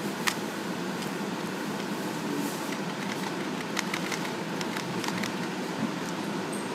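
Steady fan noise, with scattered sharp computer keyboard key clicks as commands are entered and the configuration listing is paged through.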